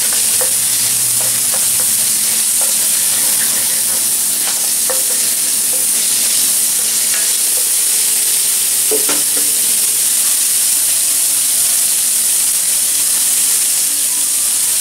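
Raw shredded chicken and sliced onion sizzling in hot oil in a non-stick wok, a steady high hiss. A wooden spatula stirs and scrapes the pan now and then, most clearly about nine seconds in.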